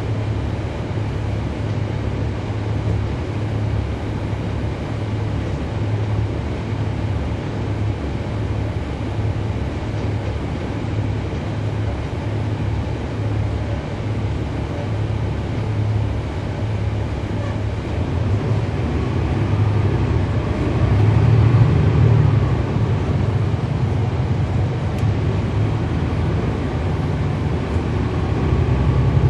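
Cummins ISL9 turbocharged inline-six diesel of a 2011 NABI 40-SFW transit bus running on the road, a steady low drone. About two-thirds of the way through it grows louder and deeper for a few seconds, then eases off.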